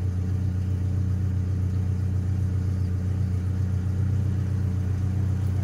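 Vehicle engine idling steadily while warming up after a cold start, an even low drone with no change in speed.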